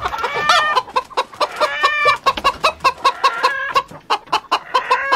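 Chicken clucking: a fast run of short clucks, about four a second.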